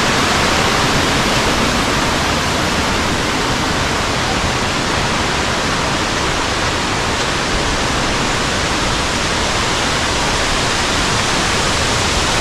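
A waterfall's falling water rushing, a loud, steady hiss.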